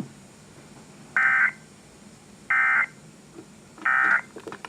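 Emergency Alert System end-of-message signal: three short buzzy bursts of SAME digital data tones, about a second and a half apart, marking the end of the alert. A few faint clicks follow near the end.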